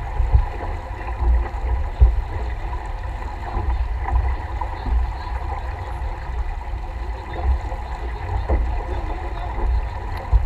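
Water rushing along the hull of a sailboat under way, with wind buffeting the microphone in uneven gusts and a few short knocks.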